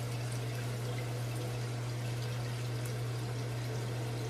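Toilet tank refilling through a newly installed fill valve with the supply turned on full: a steady rush of water with a constant low hum underneath.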